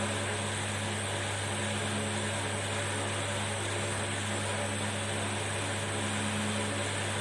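Hot air rework gun blowing steadily with a low hum, heating a phone's charging connector so the solder beneath it melts and the connector seats onto the board.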